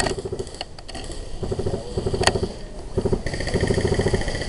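Airsoft electric guns firing short full-auto bursts, each a rapid buzzing rattle of the motor and gearbox cycling, with a sharp crack about two seconds in.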